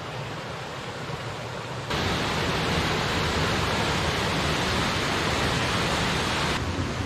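Steady heavy rain falling, an even hiss that gets abruptly louder about two seconds in and a little softer near the end.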